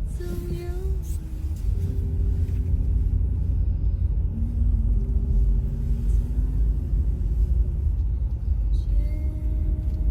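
Steady low rumble of a car driving on the road, with a soft, slow melody of held notes playing over it.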